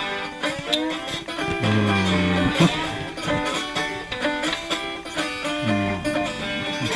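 Background music with plucked string instruments, banjo and guitar, in a bluegrass or country style, with quick picked notes throughout.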